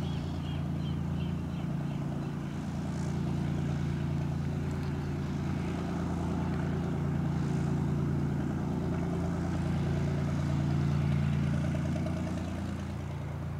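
Cessna 206H Stationair's six-cylinder Lycoming piston engine and propeller running steadily at low power while taxiing, with a slight swell in level about two-thirds of the way through.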